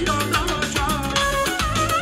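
Live Armenian band music: a fast, ornamented melody line over a steady beat of dhol and drum kit.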